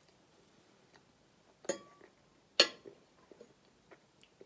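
Two sharp clinks a little under a second apart, the second louder, the first with a brief ring, then a few faint ticks: a metal fork knocking against a ceramic plate while eating.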